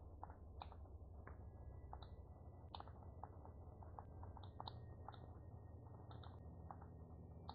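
Near silence: faint, irregular computer mouse clicks, a dozen or more, over a low steady room hum.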